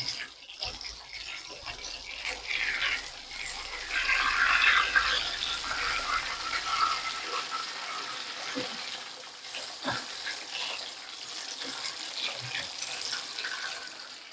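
Masala-coated fish frying in hot oil in a pan, sizzling steadily, loudest about four seconds in, with a few small crackles.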